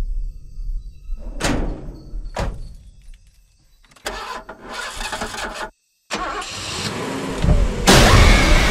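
Two sharp whooshes, then an old pickup truck's engine cranking as the ignition key is turned, cut off by a sudden moment of silence. After that, music swells into a loud, dense hit with a woman screaming over it near the end.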